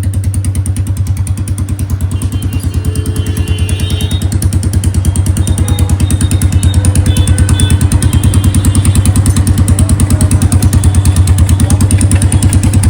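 Royal Enfield Bullet 350's single-cylinder engine idling through an aftermarket band-pipe exhaust, a steady rapid run of exhaust thumps that gets a little louder after about four seconds.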